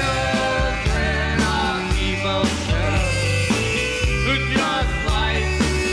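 Rock song in an instrumental break without singing: a band with drums and bass, over which a lead melody slides and bends in pitch.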